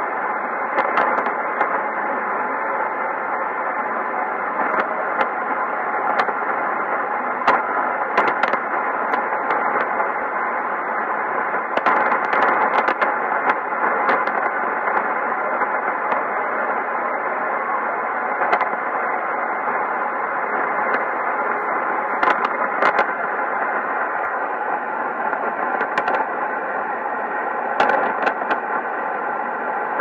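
Sony ICF-2001D shortwave receiver tuned to 3375 kHz AM in narrow synchronous mode, giving steady muffled hiss with frequent crackles of static. A weak AM broadcast signal from Radio Municipal is barely discernible in the noise.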